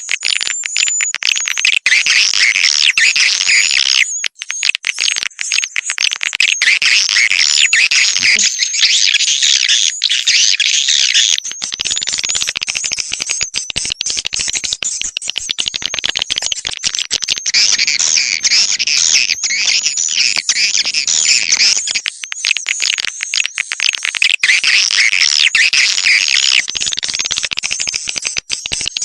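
Recorded swiftlet calls: dense, continuous high-pitched twittering and chirping of many swiftlets, a lure call played to draw wild swiftlets into a swiftlet house.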